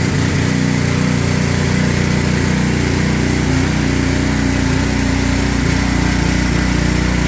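Pressure washer's small engine running steadily under load, with the hiss of the spray.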